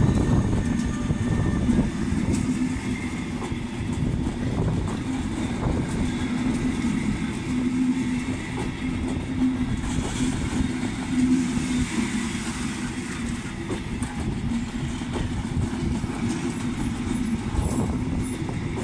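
Electric passenger train rolling past, locomotive then coaches: a steady rumble of wheels on rails with a low hum and scattered clicks. A higher whine at the start fades away within the first two seconds.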